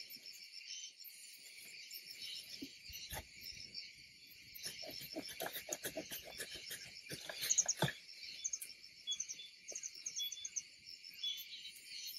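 Shekwasha citrus branches being cut by hand: a run of snips, snaps and leaf rustles from about four to eight seconds in, with a single snap a little earlier. Under it runs a steady chirring of insects.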